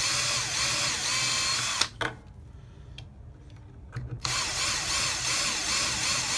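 Power drill with a small 1/16 bit drilling into the rivets of a diecast toy car, its motor pitch wavering as the trigger is eased. It stops about two seconds in and starts up again about two seconds later.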